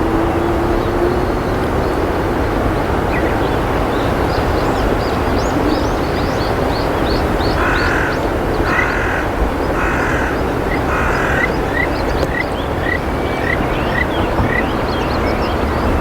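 A crow caws four times, about a second apart, near the middle, over a loud steady rushing background. A small bird chirps repeatedly in short high notes, about two a second, after the caws.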